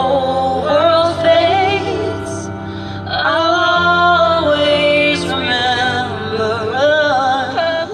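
A pop ballad playing, with a woman's voice singing long, wordless held notes with vibrato over sustained low chords.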